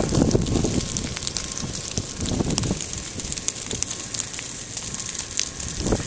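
Prescribed fire burning through dry grass and brush, a steady crackling and popping, with wind gusting on the microphone, strongest about a second in and again midway.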